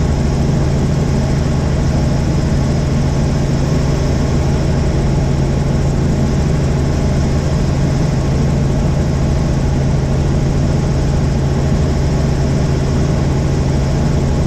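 Helicopter running steadily: an even engine and rotor drone with a strong low hum and no changes in pitch or level.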